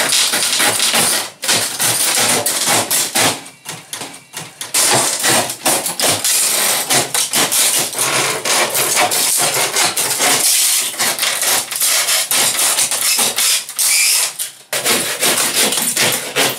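Hand saw cutting through old ceiling laths in rapid rasping strokes, mixed with knocks and cracks of the wood being worked, with two brief pauses.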